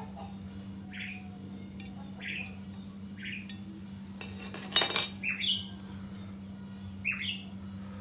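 Short bird chirps, spaced about a second apart, over a steady low hum, with one loud sharp clink about five seconds in.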